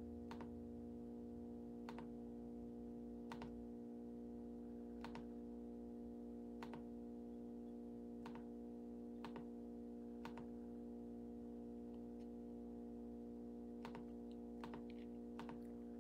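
Faint sharp clicks, about one every second and a half and coming closer together near the end, over a steady low hum.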